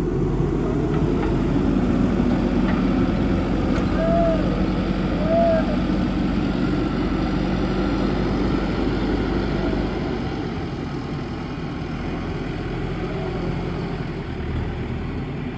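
JCB backhoe loader's diesel engine running steadily, easing off slightly about two-thirds of the way in. Two short high chirps sound a little after 4 s and again about a second and a half later.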